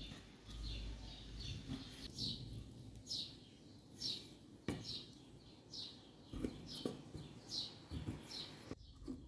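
A knife cutting raw chicken breast into cubes on a wooden chopping board, with several sharp knocks as the blade meets the wood. Under it a bird gives a string of short, falling chirps, a little more than one a second.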